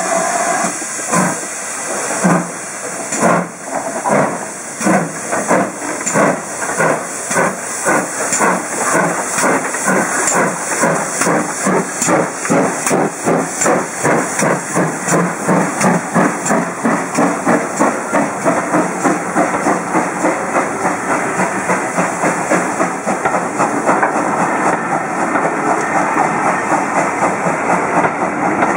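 Steam locomotive working hard, its chuffing exhaust beats slow and widely spaced at first, then quickening steadily as it gathers speed, with the hiss of steam. Near the end the beats give way to the rumble of passing coaches.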